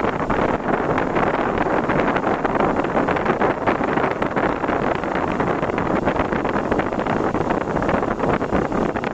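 Steady rushing noise of a car driving on the road, with wind noise on the microphone.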